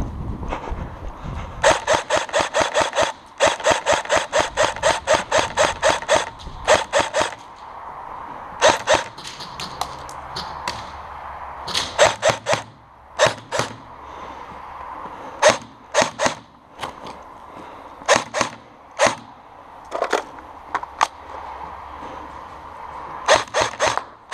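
Airsoft guns firing in a bare concrete hall: quick runs of sharp shots about four or five a second for the first few seconds, then single shots every second or two.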